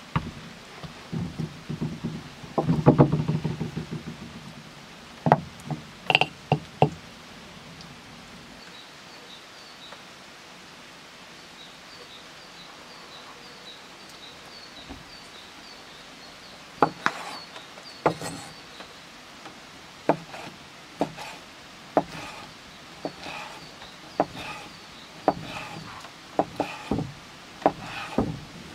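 Pasta dough being kneaded and pressed on a floured wooden platter, giving soft thumps, then after a quiet spell a large knife slicing cured pork, its blade knocking on the cutting board about once a second.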